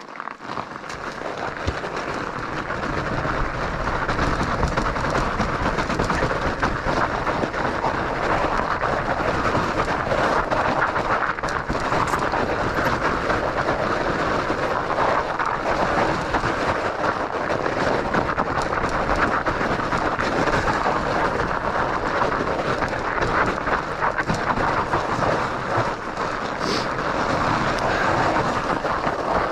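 Studded fat-bike tires crunching and scraping over ice and hard snow on a fast descent, with the bike rattling over the rough surface. The noise builds over the first few seconds as speed picks up, then runs on steadily.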